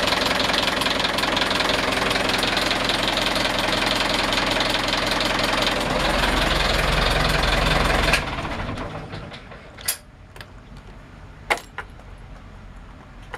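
Yanmar inboard marine diesel engine running steadily, then shut off about eight seconds in and dying away within a second. A few sharp clicks follow as the key switch on the engine panel is handled.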